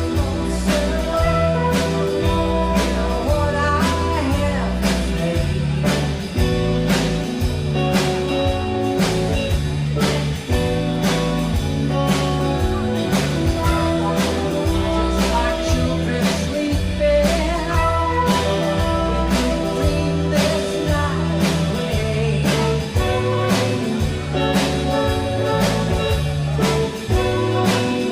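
Band music with a singing voice over a steady drum beat of about two beats a second, with bass and guitar.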